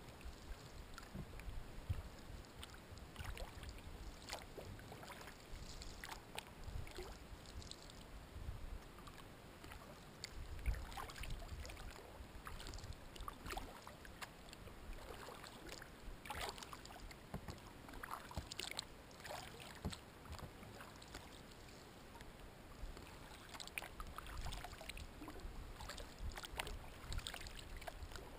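Kayak paddle dipping gently into calm water: faint, irregular little splashes and drips off the blades.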